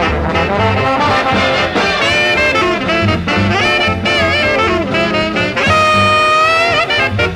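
Big band swing jazz: brass and saxophone sections playing ensemble phrases over a pulsing bass line, with one long held note about six seconds in that bends at its end.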